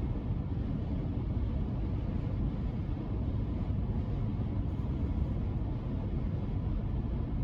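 Steady low rumble of a vehicle driving, with road and engine noise.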